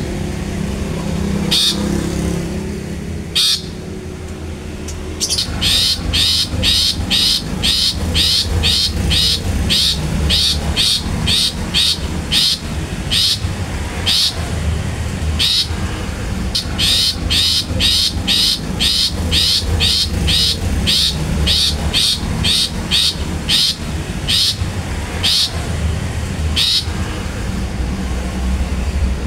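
Long-tailed shrike (cendet) giving short, harsh 'tet' calls: a few spaced calls at first, then a rapid run of about two a second from about five seconds in, with brief pauses, over a steady low rumble.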